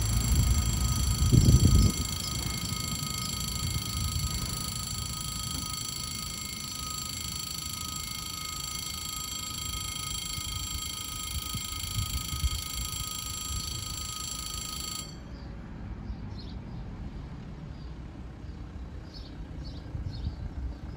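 Level-crossing warning alarm ringing with a steady electronic tone while the barriers lower. It cuts off suddenly about fifteen seconds in, once the barriers are down. In the first two seconds a car passes close by with a low rumble, the loudest sound here.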